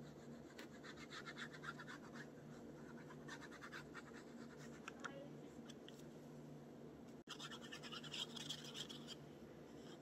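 Faint scratching and rustling of paper as a glue bottle's applicator tip is rubbed over the back of a paper cut-out, coming in short spells, with a louder stretch of scratching near the end.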